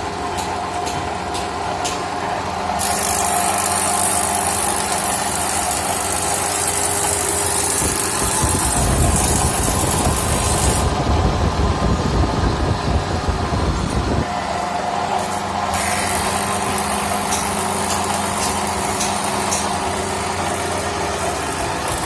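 Electric wood planer (randa) machine running with a steady motor hum and a high hiss that comes and goes. About a third of the way in it turns rougher and louder for several seconds, then settles back to the steady hum.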